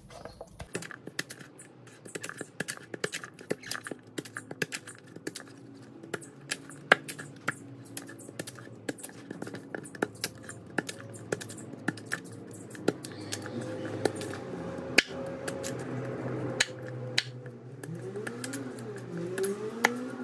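Chef's knife chopping a peeled tuber on a bamboo cutting board: irregular sharp knocks as the blade cuts through and strikes the wood, sometimes several a second.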